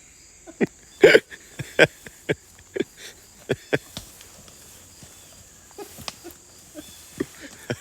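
Laughter in short, irregular bursts, loudest and densest in the first few seconds, then sparser.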